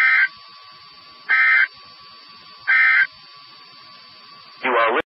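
Emergency Alert System end-of-message data bursts: three short, identical digital screeches about 1.3 seconds apart, signalling the end of the severe thunderstorm warning broadcast. A faint steady tone runs underneath.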